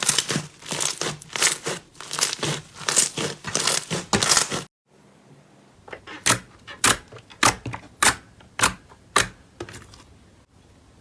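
Crunchy slime being squeezed and worked by hand, giving dense crackling and crinkling. It cuts off suddenly, and after a short pause come about seven sharp clicks, a little over half a second apart.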